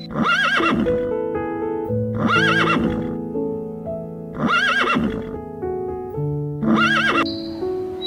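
A horse whinnying four times at even intervals, about every two seconds, each call wavering up and down in pitch, over piano background music.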